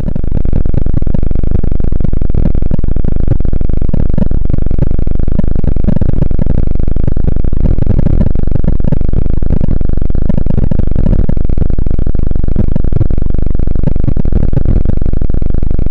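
Sonification of the pulsating Delta Scuti star HD 31901's TESS brightness readings: 55 pulsations over 27 days sped up 54,000 times into a loud, steady, low drone with a fast flicker. It swells in at the start.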